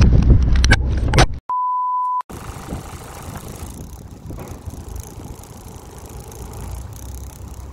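Loud low rumble of boat engine and wind with a few handling knocks, broken off by a short, single-pitched beep of about 1 kHz set in silence, an edit sound effect. After the beep, quieter steady boat engine and wind noise.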